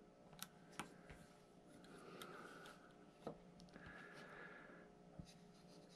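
Near silence, broken by a few faint, short clicks as photoresistor leads are pushed into a small plastic solderless breadboard.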